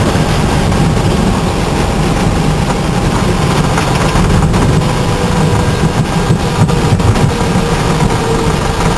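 Airbus A319 rolling down the runway after landing, heard from inside the cockpit: a loud, steady low rumble of wheels and engines with a hiss of airflow over it.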